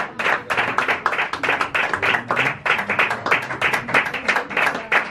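A small audience clapping: steady applause made of many separate, distinct hand claps.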